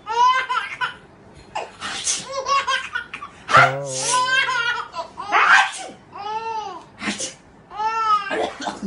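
A man sneezing about four times, each sneeze answered by a baby boy's high-pitched laughter in short rising-and-falling bursts.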